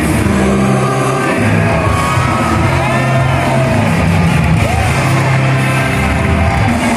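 Loud backing music with long held bass notes and gliding melodic lines above them, playing steadily throughout.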